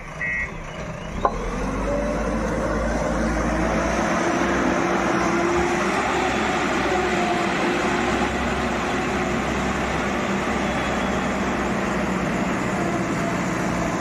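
JCB 3DX Eco Xpert backhoe loader's diesel engine working under load. Its reversing beeper sounds once or twice right at the start, there is a sharp knock about a second in, and the engine then picks up to a louder, steady note with a wavering whine for the rest of the time.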